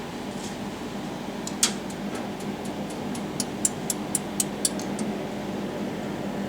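Jewelry laser welder firing a run of pulses: about a dozen sharp, high ticks over some three seconds, the first the loudest. Under them runs the steady hum of the welder's cooling system.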